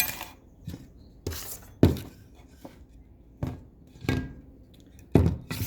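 Metal hand tools and parts clanking and knocking on a work table, about eight separate irregular knocks with a short metallic ring. The loudest come about two seconds in and just after five seconds.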